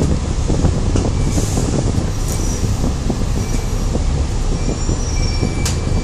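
Ride noise inside an Alexander Dennis Enviro500 double-decker bus moving slowly: a steady low engine rumble with continual rattling of the body and fittings, and a few brief thin high squeals.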